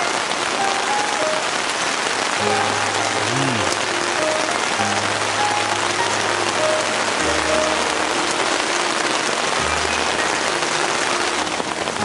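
Heavy rain falling steadily on a tent, heard from inside as a dense, even hiss. Background music with a simple melody over held bass notes plays over it.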